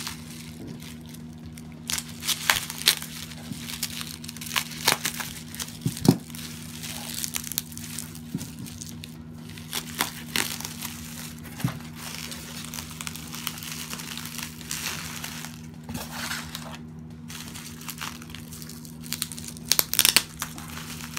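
Bubble wrap being handled and pulled off a package, crinkling and crackling in irregular bursts, with a cluster of louder crackles near the end.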